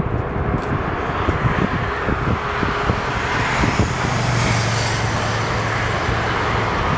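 Boeing 747's four jet engines roaring as the airliner comes over the runway to land, the sound swelling about four seconds in as it passes closest.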